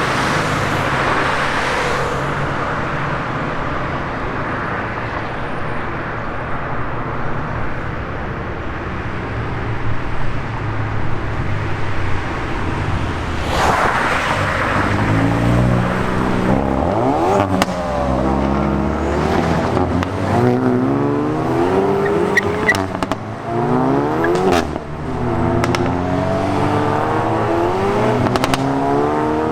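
Hyundai i30N engines and exhausts running steadily, then from about halfway revving up and down over and over, with sharp exhaust pops and crackles among the revs.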